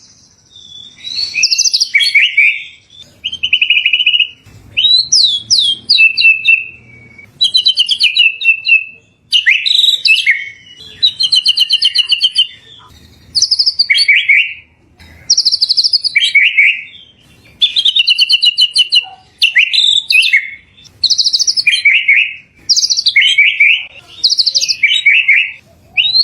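Murai songbird (a Copsychus shama or magpie-robin) singing vigorously, a loud run of varied whistled and rapidly trilled phrases repeated every second or two with short pauses between them.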